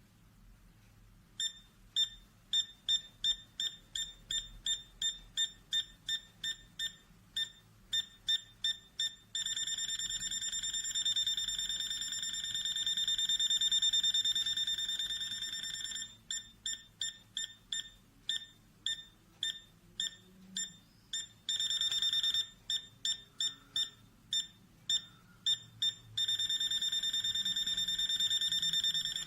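A digital multimeter's beeper sounding a high-pitched alarm as it senses voltage. It pulses about three times a second and at times runs into a continuous steady tone, three times over.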